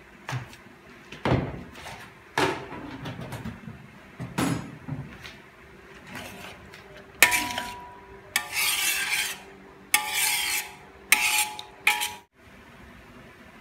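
Metal spoon stirring tomato sauce in a metal wok. It knocks against the pan three times, then scrapes along the pan in several strokes with a metallic ring, and stops abruptly near the end.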